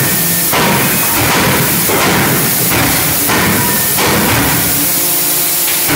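A 63 kJ CNC forging hammer is striking a red-hot steel connecting-rod blank in a rapid, even series of heavy blows, about three every two seconds, over a steady hiss.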